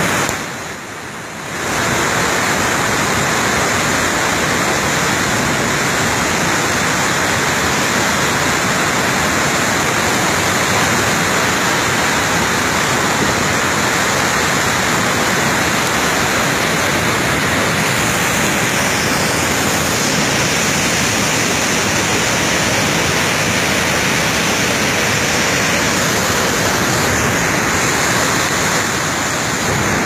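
Waterfall pouring down close by: a loud, steady rush of water, briefly muffled for about a second near the start.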